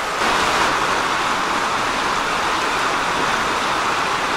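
River water rushing steadily, an even hiss of flowing water that gets louder just after the start and then holds.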